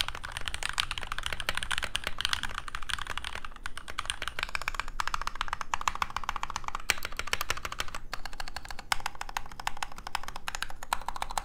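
Sound test of a Womier WK61 60% mechanical keyboard, its alphas fitted with stock JWick switches, with the stock PBT keycaps, aluminium plate and clipped, lubed stock stabilizers: a continuous, rapid run of keystrokes.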